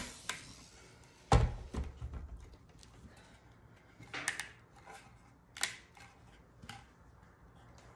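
A single dull thud about a second and a half in, then scattered light knocks and clicks as a small white wooden shadow-box frame is picked up and turned over in the hands.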